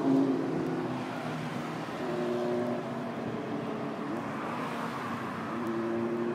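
City road traffic: vehicle engines run with a steady drone that fades and returns over a constant noise of passing cars, with one engine note rising briefly about four and a half seconds in.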